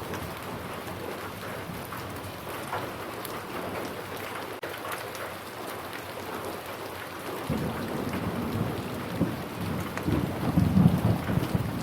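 Steady rain falling, with fine patter throughout. A low rumble of thunder builds from a little past halfway and is loudest near the end.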